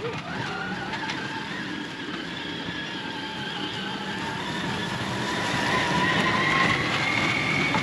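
Intimidator Classic electric UTV's drive motor whining as it accelerates on a new 48V lithium battery pack. The whine climbs steadily in pitch and grows louder over several seconds, then levels off near the end, over a rushing noise.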